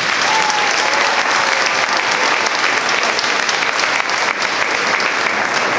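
Large stadium crowd applauding steadily, a dense patter of many hands clapping.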